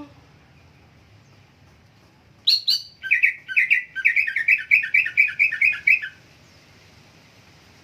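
Green leafbird (cucak hijau) singing: two sharp high notes about two and a half seconds in, then a fast run of repeated chirping notes, about four a second, that stops about six seconds in.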